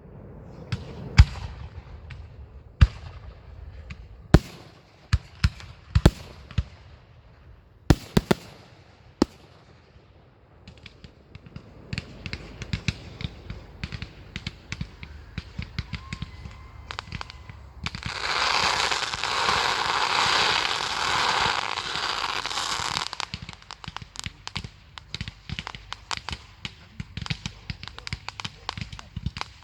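Fireworks display: a string of sharp single bangs from bursting shells over the first ten seconds, then dense crackling from many small pops. About halfway through, a loud steady hissing crackle lasts about five seconds before it breaks back into scattered crackling.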